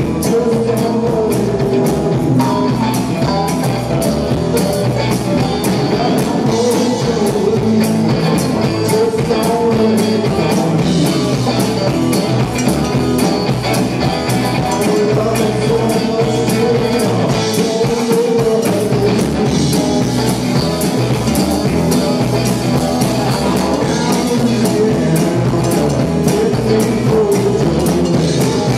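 Live R&B band playing with a steady beat: electric guitar, bass guitar, drum kit and congas, with a hand-held tambourine.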